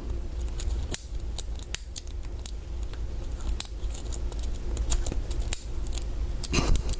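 Small irregular metallic clicks and scrapes of a hook pick and tension wrench working the pins of a Master Lock 140's 4-pin pick-resistant core, with a steady low hum underneath.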